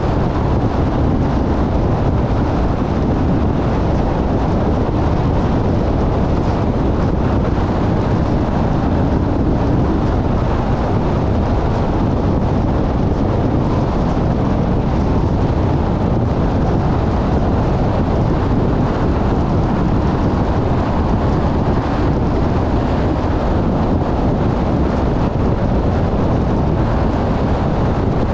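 Steady road and wind noise of a car driving at speed: an even rumble of tyres and rushing air, heaviest in the low end, with no changes.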